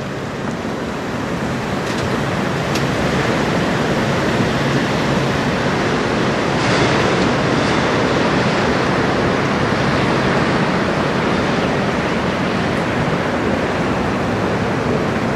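Steady rushing noise of lake waves and wind buffeting the microphone.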